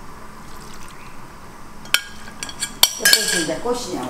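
A ceramic bowl and utensils against a metal pan while seasoning is added, giving two sharp clinks about two and three seconds in, followed by a voice near the end.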